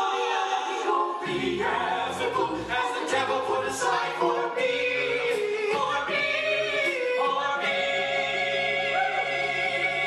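Five-voice a cappella group singing in close harmony over a deep bass part, with no instruments, closing on a long held chord.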